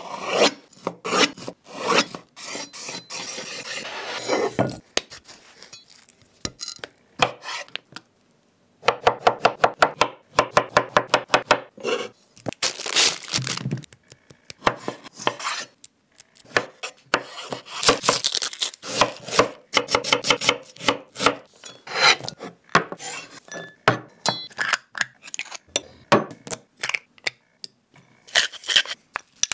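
Kitchen knife cutting and chopping food on a wooden cutting board, with a fast, even run of chopping strokes about six a second partway through. Near the end, a metal spoon clinks against a glass bowl.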